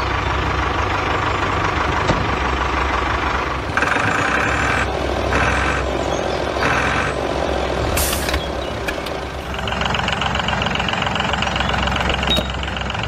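Engine sound for a toy tractor: a steady low diesel-style drone, with three short bursts of a higher pulsing tone about four to seven seconds in, a brief hiss near eight seconds, and a steady higher whine from about ten seconds on.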